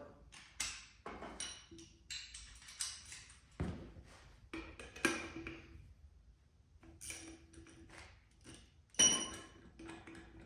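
Metal tools and motorcycle wheel parts clinking and tapping against each other: a series of separate sharp metallic clinks, several with a short ringing tone, the loudest about nine seconds in.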